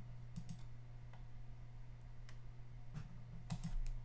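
Scattered light clicks of a computer mouse and keyboard, about eight, over a low steady electrical hum.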